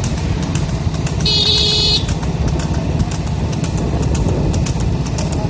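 Motorcycle engine running at road speed with rushing air noise, heard from the moving bike. A short high-pitched beep sounds for under a second about a second and a half in.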